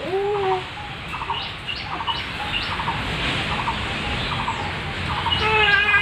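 Rose-ringed parakeets calling. A short pitched call comes at the start, then a run of quick chattering chirps, and a louder, longer call with several stacked tones near the end.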